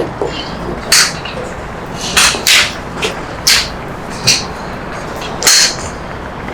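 Golf club swishing through the air in a run of short practice swings, about six quick swishes a second or so apart.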